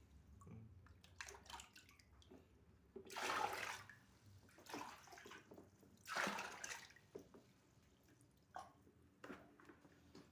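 Water being bailed out and poured away: two loud splashes about three and six seconds in, with smaller knocks and drips between.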